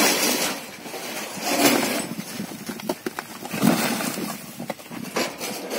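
Brick wall collapsing, with bricks and rubble crashing down and clattering onto the debris pile in several loud crashes, the first at the start, then about a second and a half in and again near four seconds.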